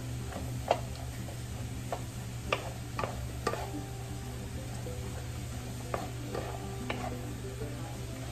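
Shrimp, carrots and string beans sizzling as they are stir-fried in a wok, with a wooden spatula scraping through them and knocking sharply against the pan about eight times, loudest about three quarters of a second in. A steady low hum runs underneath.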